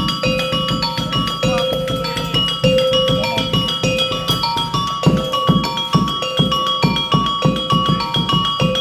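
Topeng monyet accompaniment: a metallophone repeats a short ringing pattern of notes over quick hand-drum strokes. The drumming gets busier and louder about five seconds in.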